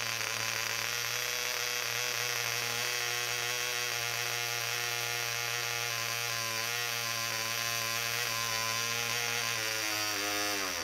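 VA Banks Mills 0.25cc miniature two-stroke model diesel engine running at a steady high speed while its compression screw is adjusted, with a fast, even buzz. The pitch wavers slightly in the later seconds, and the engine stops abruptly right at the end.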